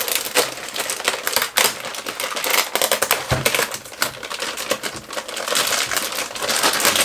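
Clear plastic bag crinkling and rustling as hands pull it open and off a car radio head unit, a dense crackle of many small clicks.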